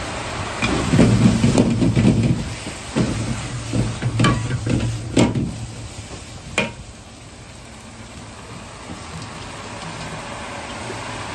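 Cabbage stir-frying in an iron wok: sizzling while a metal ladle scrapes and knocks against the wok, with several sharp clangs. The stirring stops about seven seconds in, leaving a quieter steady sizzle.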